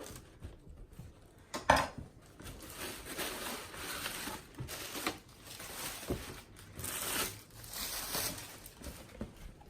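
A box's wrapping or packing being torn open, crinkling and tearing in a series of rustling stretches, after a sharp knock about two seconds in.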